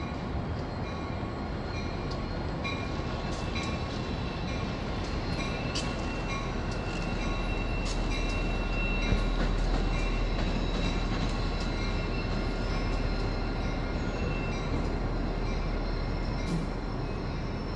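MARC diesel locomotive running as it moves along the tracks: a steady rumble whose deep low end swells in the middle and then eases off, with a few thin steady tones above it.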